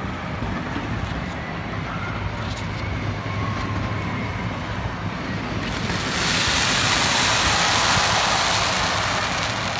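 Fireworks display heard from a distance: a steady low rumble with a few faint pops. About six seconds in, a loud, dense crackling hiss swells up and lasts about four seconds as a burst of glittering crackle shells goes off.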